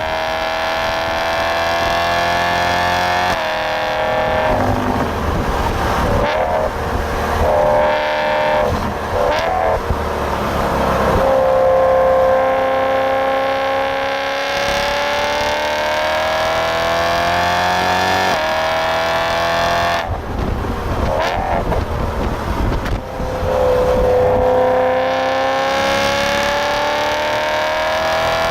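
Supercharged BMW E92 M3's V8 under hard acceleration, its revs climbing in long sweeps broken by gear changes and lifts about 3, 11, 20 and 23 seconds in.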